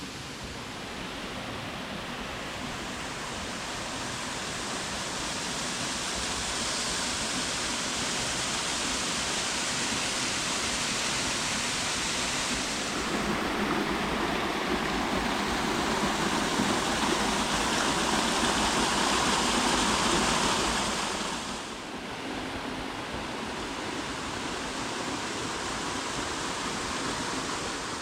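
Waterfall pouring into its pool, a steady rush of falling water that grows louder through the first half and falls off noticeably about three-quarters of the way in.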